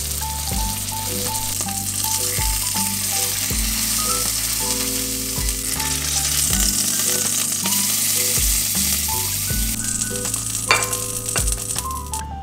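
Beef patty frying in oil in a pan: a steady sizzle that dies down near the end. Soft background music with a simple melody plays throughout.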